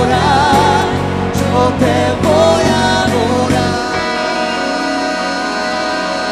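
Live worship band music: electric and acoustic guitars and keyboard with a singing voice, over a pulsing bass line that drops out about four seconds in.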